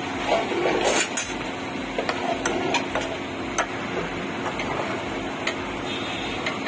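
Scattered clinks and knocks of steel dishes and utensils, the sharpest about a second in, over a steady kitchen hum.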